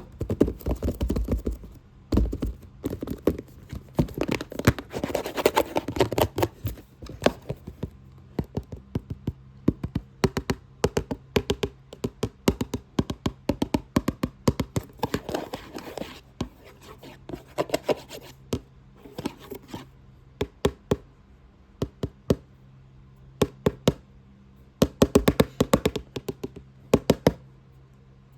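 Fast, aggressive tapping and scratching on a box: rapid sharp taps coming in quick clusters, with scratchy rubbing mixed in during the first several seconds.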